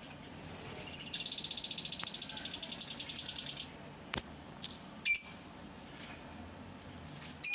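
Budgerigars in an aviary: a fast, high chattering trill of rapid clicks that lasts about two and a half seconds, then two short, sharp chirps, the second near the end.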